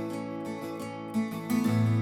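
Background music: plucked acoustic guitar notes.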